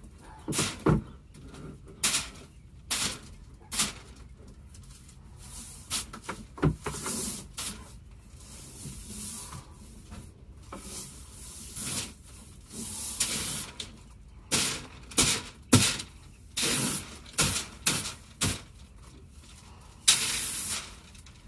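Airless paint spray gun hissing in repeated short bursts as the trigger is pulled and released, spraying primer onto cabinets, with a few low knocks between bursts.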